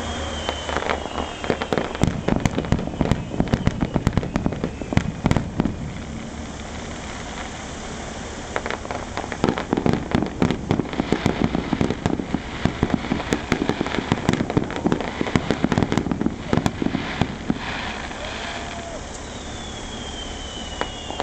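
Fireworks display close up: aerial shells bursting and crackling in rapid volleys of sharp bangs, with quieter gaps between volleys. A high thin whistle sounds near the start and again near the end.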